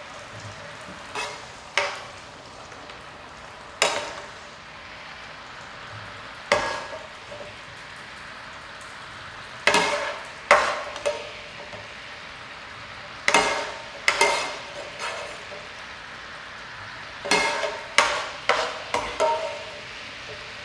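Cooked chicken sizzling in an electric skillet. A serving spoon knocks and scrapes against the pan and a glass bowl in irregular clusters every few seconds as the meat is scooped out.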